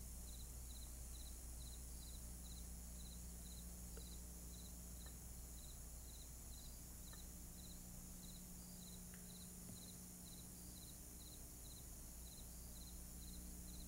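Faint cricket chirping, about three evenly spaced high chirps a second, over a low steady electrical hum.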